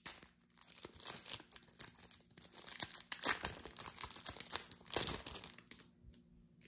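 A Topps Match Attax trading-card pack's wrapper being torn open and crinkled by hand, in irregular crackles that stop about a second before the end.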